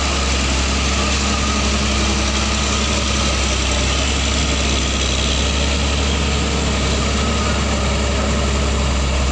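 Hino dump truck's diesel engine running steadily at low revs under heavy load as the truck crawls up a steep climb close by, a deep, even hum.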